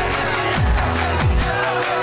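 Background electronic music with a heavy beat: deep bass hits that slide down in pitch, about two a second, under busy synth parts.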